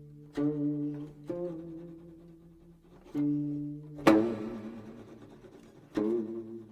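Slow instrumental passage on a plucked string instrument: about five single notes, each plucked and left to ring and fade, with gaps between them.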